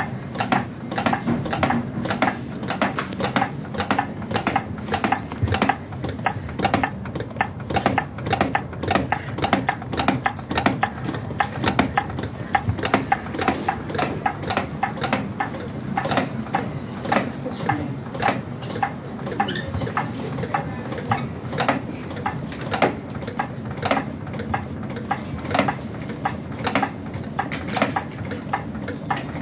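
Chest compressions on a CPR training manikin: a steady, even run of sharp clicks, about two a second, at the recommended compression rate.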